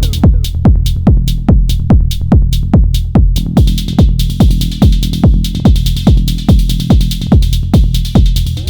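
Techno pattern played on an Elektron Model:Cycles groovebox: a steady four-on-the-floor kick drum about two beats a second, with ticking hi-hats over a low bass. About three and a half seconds in, a bright hissing high layer comes in.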